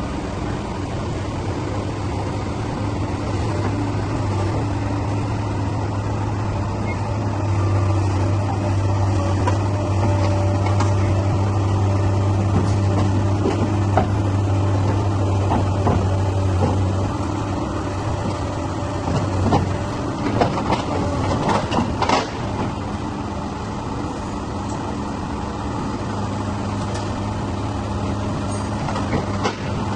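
Heavy earthmoving machine's engine running steadily with a low drone that is strongest through the middle. A cluster of sharp metallic clanks and knocks comes about two-thirds of the way in.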